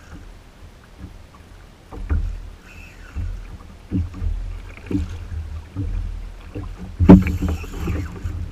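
Hobie Outback fishing kayak on open sea: a low rumble of wind and water against the hull, with irregular knocks roughly once a second and a louder rushing burst about seven seconds in.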